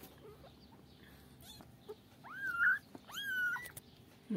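Kittens mewing: two short, high-pitched mews about a second apart in the second half, each rising then holding its pitch.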